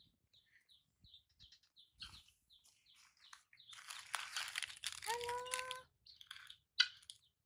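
Plastic snack packet crinkling and tearing as it is opened by hand, the loudest part running about two seconds from near the middle. Faint high chirps come and go throughout, and a short pitched call sounds near the end of the crinkling.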